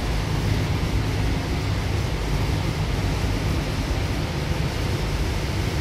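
Cabin noise inside a Goninan K-set double-deck electric train running at speed: a steady low rumble with a hiss, from the wheels on the rails and the running gear.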